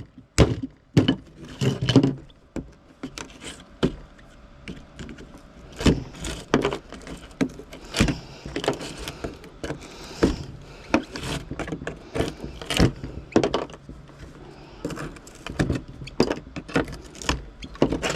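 Scrap metal being handled and sorted: irregular clanks, knocks and rattles as pieces are picked up and dropped or tossed into bins.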